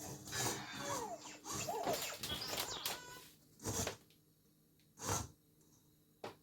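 Sphero BB-8 toy droid making electronic chirps and warbling, gliding beeps, followed by two short whooshing bursts and a click near the end.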